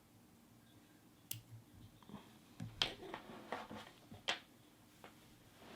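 Small fly-tying scissors snipping away excess hackle at the fly: a few sharp snips, spread irregularly, with lighter clicks of handling between them.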